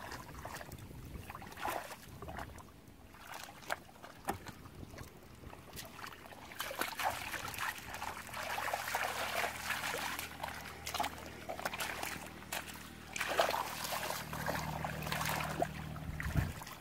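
Hands sloshing and squelching through shallow muddy water, groping in the mud for fish, with irregular splashes. A steady low hum comes in about halfway and stops abruptly just before the end.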